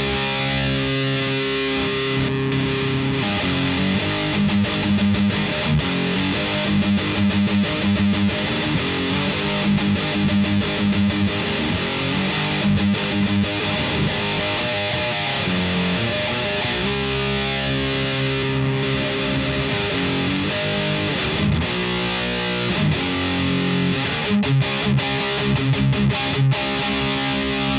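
Distorted electric guitar, a PRS SE 245 played through a thiSHEAvyearth Grim pedal set fully wet with no clipping diodes, playing heavy riffs that mix held chords with stretches of fast, chugging notes.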